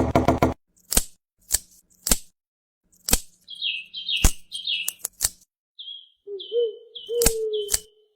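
A quick rattle of taps, then single sharp taps at uneven intervals. From about three seconds in they are joined by runs of short high chirps, each falling in pitch, with a low wavering tone beneath the later chirps.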